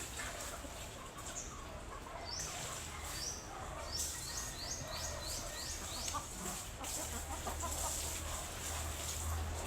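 Chickens calling, with a quick run of short, high-pitched, falling calls a few seconds in. A steady low hum runs underneath and grows louder near the end.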